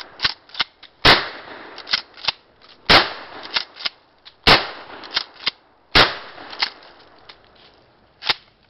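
12-gauge shotgun firing four loud shots about a second and a half apart, with quicker, quieter sharp clacks between the shots.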